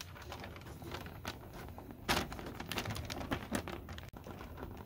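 Small clicks and light rustling of the sail fabric as hands unclip a clevis from a control horn on a model flying wing's frame, with one louder click about two seconds in.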